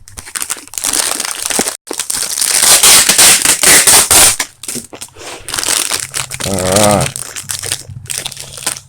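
Plastic packaging being crinkled and crumpled by hand: a loud rustling crackle for a few seconds, then quieter handling.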